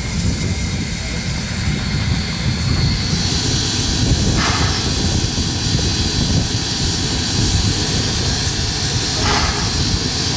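Steam locomotive standing with steam hissing steadily over a low rumble; the hiss grows louder about three seconds in.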